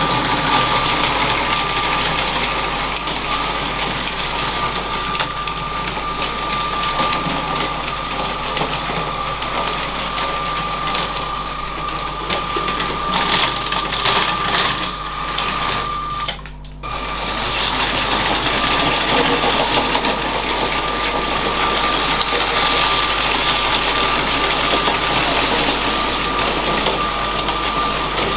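LEGO train's small electric motor running with a steady high whine, its wheels rattling and clicking along the plastic track. The sound breaks off for about half a second about two-thirds of the way through, then carries on.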